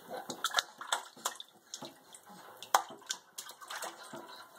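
A baby slapping his hands on bath water: a run of irregular splashes, with one sharp, loud splash a little under three seconds in.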